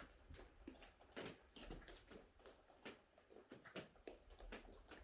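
Near silence, with faint scattered light clicks and taps.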